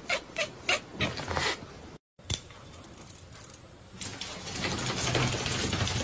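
A ginger cat giving a quick run of short, high calls, about three a second, for the first second and a half. After a break, a louder rustling noise fills the last two seconds.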